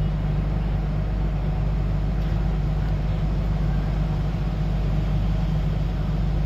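The diesel engine of a Sunward rotary bored-pile drilling rig running steadily, a low, even drone.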